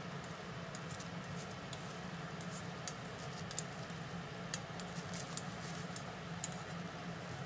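Egg cooking over a low gas flame in a deep frying pan: faint sizzling with scattered small crackles and ticks over a steady low hum.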